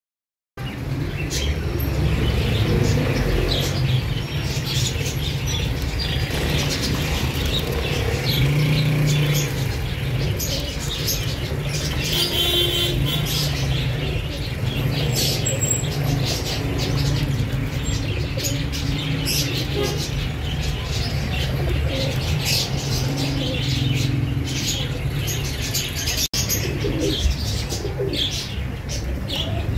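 Pigeons in a cage cooing, with wing flapping and the chirping of small birds.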